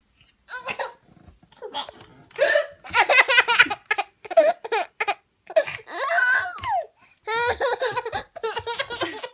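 A baby laughing hard in repeated fits of rapid, pulsing giggles, set off by a woman's hiccups, which come as short sharp gulps between the laughs.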